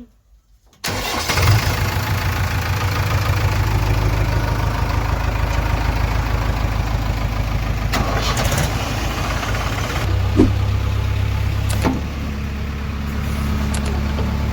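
Heavy diesel engine running steadily. It cuts in suddenly about a second in, and its pitch shifts around ten and again around twelve seconds in.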